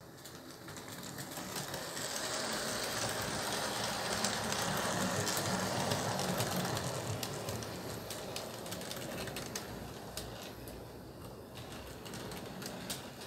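HO scale model train rolling past on its track: a steady rattle with many small clicks from the wheels that swells to its loudest about halfway through, then fades as the train moves away.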